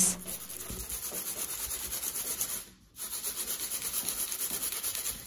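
Metal springform cake pan shuffled back and forth on parchment over a silicone baking mat, a rough rubbing in quick repeated strokes, to level freshly poured batter so the cake bakes evenly. The rubbing breaks off briefly about halfway through.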